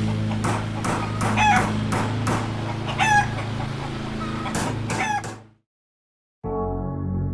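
Chickens calling, a rooster crowing with two clear crows about one and a half and three seconds in, among short clucks, over a steady low hum. The sound fades out about five and a half seconds in, and after a second of silence music starts near the end.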